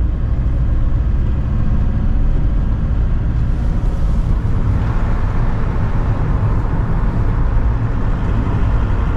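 VW T4 camper van driving, heard from inside the cab: a steady low rumble of engine and tyre noise.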